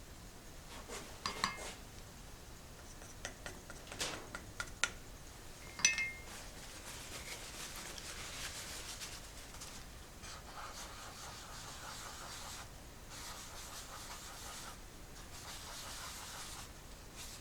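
A few light clinks and taps of small cans and a measuring cup, then a rag rubbing on wood in long strokes, wiping stain onto oak test pieces.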